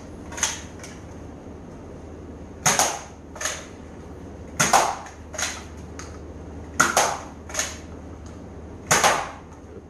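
Zuru X-Shot Ninja No Rez spring-powered foam dart blaster firing four times, about two seconds apart. Each shot is a sharp pop, followed under a second later by a softer click.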